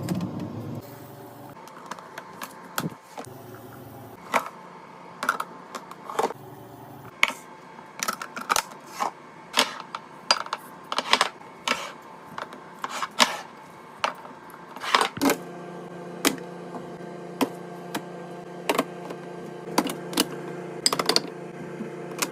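Irregular sharp clicks and taps of items and plastic containers being handled and set down while a fridge is restocked, with a steady hum joining about two-thirds of the way through.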